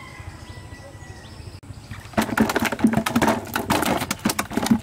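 A cast net being handled on dry ground: a fast, irregular run of rustles, taps and crackles that starts suddenly about two seconds in. Before it, a faint thin bird whistle over quiet outdoor background.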